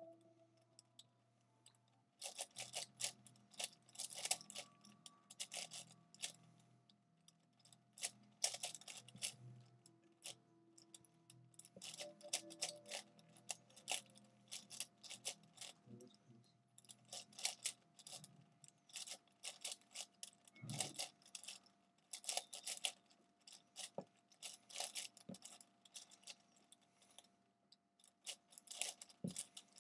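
A V-Cube 7x7 puzzle cube being turned fast during a speedsolve: bursts of plastic clicking and clacking from the layer turns, starting about two seconds in, with short pauses between the bursts.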